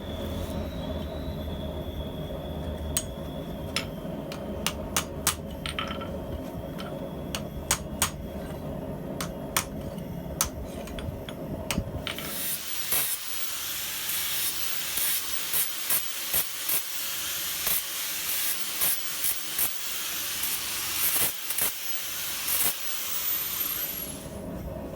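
A small gas forge running with a steady low rumble while hammer blows ring out on the hot tongs. About halfway through, the rumble stops and hot steel hisses and sizzles steadily, with crackles, as it is cooled in water, until near the end.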